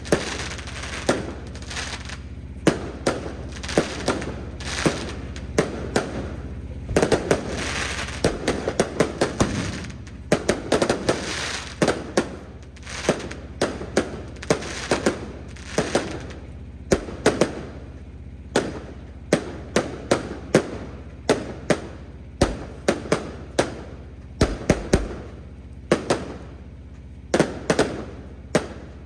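Fireworks display going off: a continuous, irregular run of sharp bangs, roughly one or two a second, with denser crackling clusters in places. A steady low hum lies underneath.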